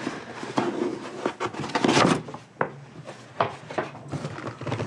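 Corrugated cardboard flaps of a shipping case being handled and folded back: rubbing and scraping of cardboard with several light knocks, loudest about two seconds in.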